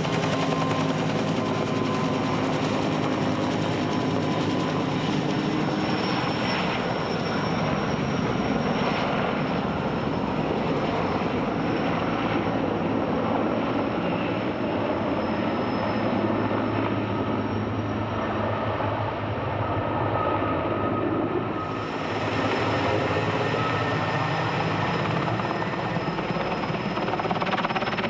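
Turbine helicopters running overhead: steady rotor and engine noise with a thin high whine. The sound changes abruptly about three-quarters of the way through.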